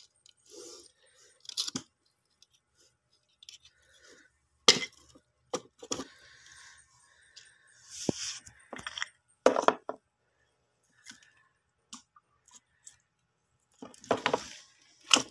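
Sea urchins, a knife and a fish being shifted around by hand in a plastic tub with a little water: scattered clicks, knocks and clatters with brief wet splashes, irregular and about a dozen in all.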